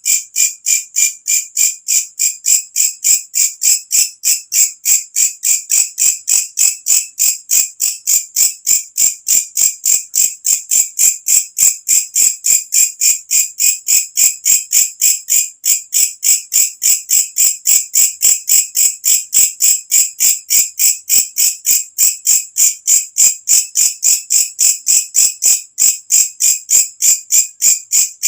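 A walang kecek bush cricket calling: a shrill, steady run of sharp chirps, about four a second, that never breaks.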